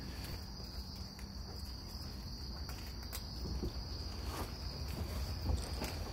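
Steady high-pitched insect chorus trilling without a break, with faint rustling and a few soft knocks as heavy firefighter turnout gear is pulled on and handled.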